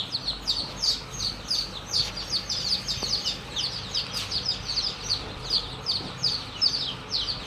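Many day-old chicken chicks peeping together: a dense, unbroken stream of high, short, falling cheeps, several every second.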